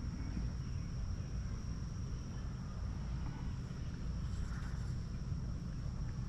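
Outdoor ambience of insects buzzing in one steady high drone, over a steady low rumble.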